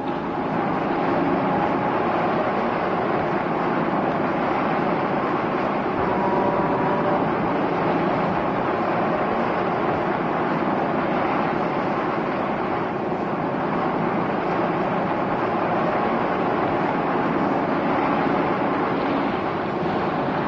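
Steady rush of water and engine noise from a boat under way, an even wash that holds at one level throughout.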